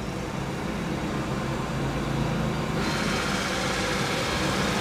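Xiaomi Roborock S7 robot vacuum running: a steady suction-fan whir over a low hum. About three seconds in a higher hiss joins it and the sound grows slightly louder.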